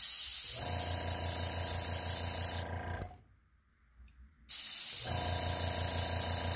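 Airbrush spraying paint in two bursts of hiss, the first about two and a half seconds long and the second about two seconds, with a near-silent gap between them. A low, steady hum runs under each burst.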